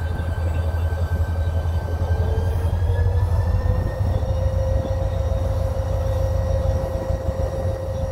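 Low steady rumble of a CSX diesel freight train, with a whine that climbs a little in pitch about two to four seconds in and then holds steady.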